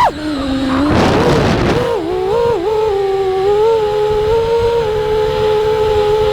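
FPV quadcopter's T-Motor F60 Pro IV brushless motors and three-blade props whining. The pitch spikes up sharply at the start, then drops away with a noisy rush. About two seconds in, it wobbles through a few quick throttle changes and then settles into a fairly steady cruise tone.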